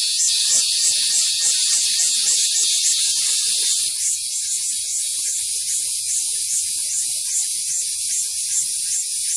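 Cicada singing: a high-pitched buzz that pulses about three to four times a second. For the first few seconds the pulses run together into a near-continuous buzz; about four seconds in it drops back to separate pulses, slightly weaker.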